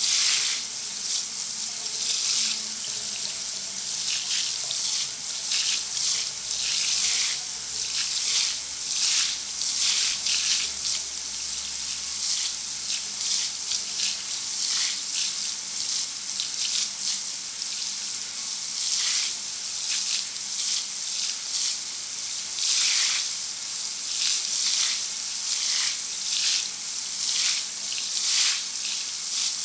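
Shower running: a steady hiss of water spraying and splashing, surging unevenly now and then.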